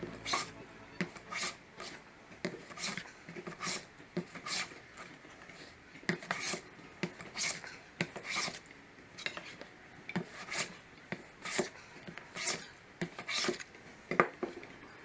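A hand tool working wood in repeated short back-and-forth strokes, a rasping scrape about one to two times a second.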